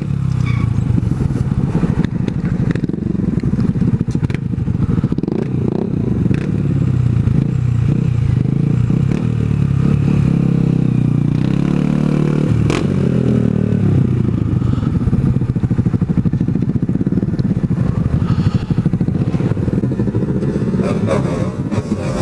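Honda Grom's small single-cylinder engine running under way, its pitch climbing and falling with the revs, with a sudden drop about halfway through.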